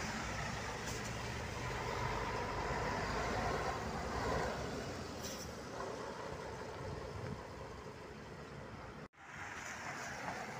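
City bus driving past on a slushy road: its diesel engine running, with tyre noise, loudest about three to four seconds in, then fading away. A brief dropout in the sound near the end.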